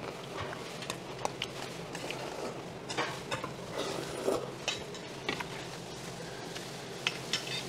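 Metal chopsticks clinking and scraping against stainless steel noodle bowls while eating, in scattered irregular clicks over a steady low hum.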